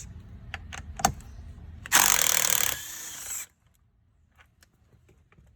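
A few sharp clicks as the 10 mm Allen socket is fitted to the steering-wheel bolt, then a power tool runs hard for about a second, spinning the bolt out.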